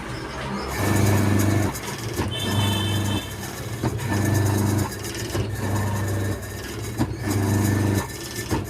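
Washing machine motor driven by a repaired control board on test, humming in short bursts that switch on and off about every one and a half seconds, with a click at each switch.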